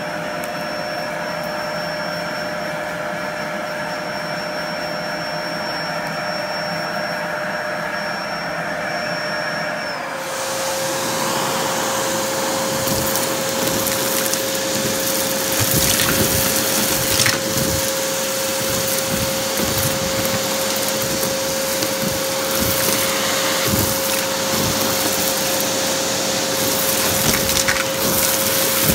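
Vacuum cleaner running steadily with a high whine over carpet. About ten seconds in its note drops, the whine stops and it gets louder. Its hose then sucks up a pile of lint, candy and small debris, with scattered crackles and clicks as pieces are pulled through.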